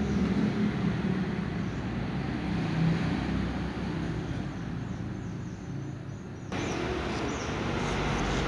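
Domestic kittens purring: a steady, rough low rumble. About two-thirds of the way in it turns suddenly brighter and louder as the phone's microphone comes up against the fur.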